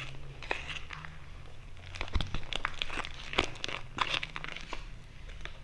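Clear homemade slime being stretched and let fall in the hand, making irregular soft sticky crackles and pops as it peels away from itself and the container. The slime is only just activated enough to come unstuck.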